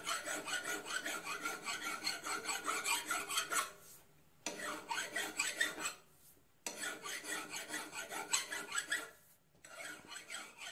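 Hand file scraping in quick repeated strokes on the edge of an antique engine's metal crankcase back cover, rounding off its corners. The filing comes in runs broken by three short pauses.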